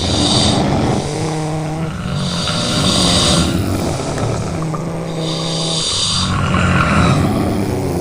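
Several people snoring together, their snores overlapping. Low rasping snores alternate with hissing breaths that come back about every two and a half seconds.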